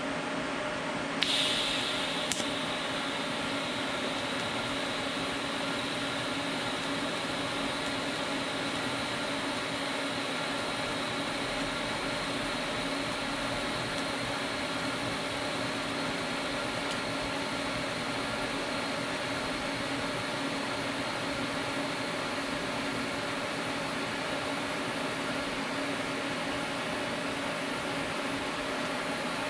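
TIG welder running with the arc lit. There is a short, sharp high-pitched hiss about a second in as the arc strikes, then a steady buzzing hum and hiss as the weld is laid.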